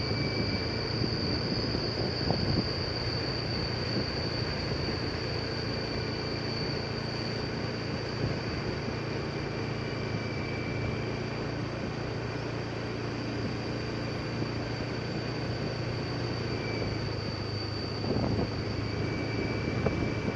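Engine and tyre noise from a vehicle driving steadily along a smooth asphalt road, with a steady high-pitched tone over it.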